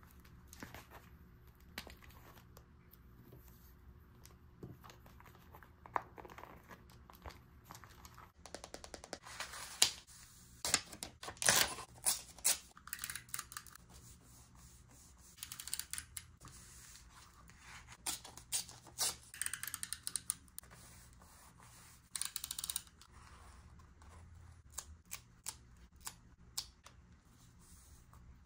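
Close-up paper-crafting sounds for journal decorating. Scissors snip paper in runs of quick clicks, and paper and stickers rustle as they are handled and laid down.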